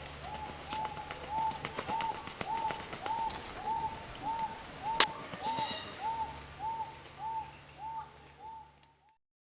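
Superb lyrebird calling: a short arching note repeated a little under twice a second, mixed with scattered clicks and one sharp click about halfway through. The calling stops abruptly near the end.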